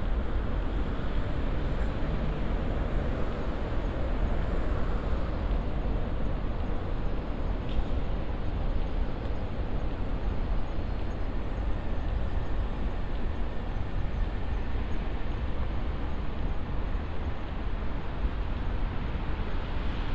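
Steady low rumble of outdoor city ambience, with no single event standing out.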